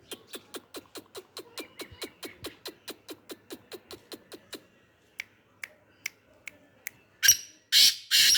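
Black francolin (kala teetar) calling: a fast run of short clicking notes, about five a second, that thins out after about four and a half seconds, then loud harsh rasping calls near the end.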